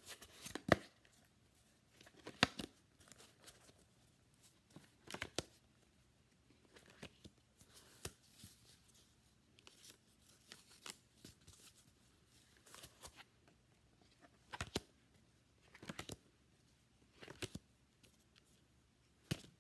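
Homemade cardboard spiral notebook being worked by hand: its cardboard pages and cover flip and scrape against the spiral binding in short clicking, rasping bursts every second or two.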